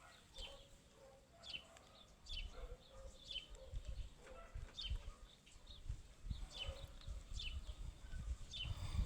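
Short high chirps of a small bird, repeating about once a second, over a low rumble that starts about two seconds in.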